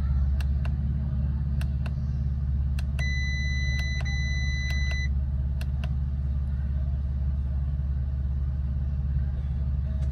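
A 2016 Audi A7's 3.0-litre supercharged V6 idles steadily, heard from inside the cabin. Over it come a string of irregular light clicks through the first six seconds, and an electronic chime that holds one tone for about two seconds, starting about three seconds in.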